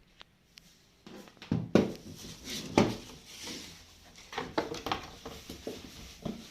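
A boxed PC power supply and its packaging being handled: irregular knocks, taps and rustles, with two sharper knocks in the first few seconds.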